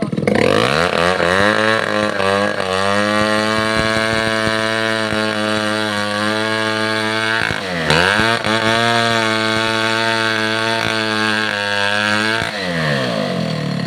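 Chainsaw engine revved up to full throttle and held at high speed, dropping sharply for a moment about halfway through and climbing straight back, then falling back to idle near the end.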